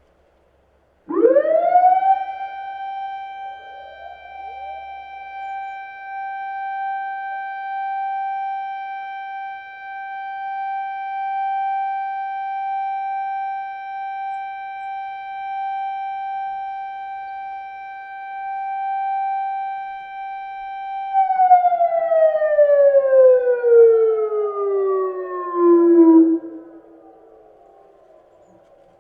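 Electronic siren of a municipal disaster-prevention radio loudspeaker system sounding the noon time signal: it rises quickly to a steady high tone, holds for about twenty seconds, then falls in pitch and cuts off. Echoes of the tone trail behind it as it falls.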